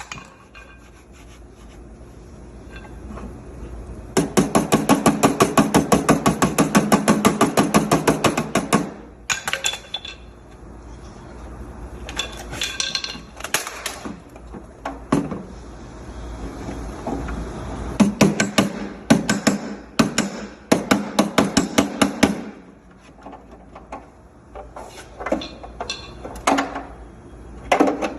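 Body-shop slapper (flipper) striking an Audi Q5 quarter panel over a dolly held behind it, drawing the low areas out. It comes in rapid runs of sharp metallic slaps, about four or five a second, broken by pauses; the longest run comes near the start.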